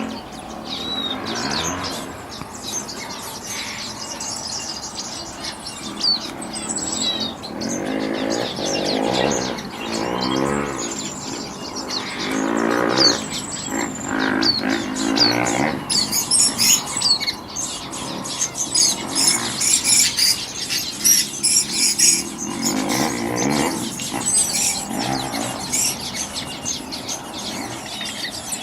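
Many songbirds chirping and calling together, a dense mix of quick high chirps and whistles, with lower, harsher calls breaking in now and then.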